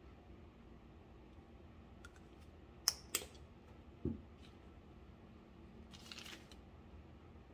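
Craft supplies handled on a tabletop: two sharp clicks about three seconds in, then a dull thump a second later as a plastic squeeze bottle of decoupage glue is set down, and a brief papery rustle near the end.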